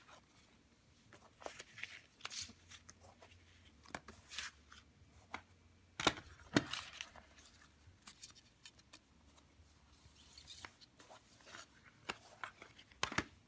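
Handling noise from a CD booklet and jewel case: scattered paper rustles and sharp clicks, the loudest a pair about six seconds in and another near the end.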